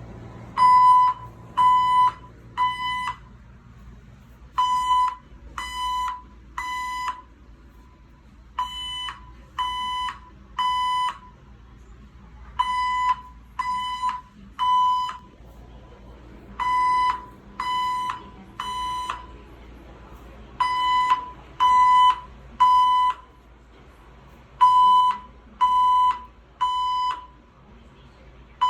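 Building fire alarm sounding the temporal-three evacuation pattern: groups of three loud half-second beeps with a pause between groups, repeating every four seconds.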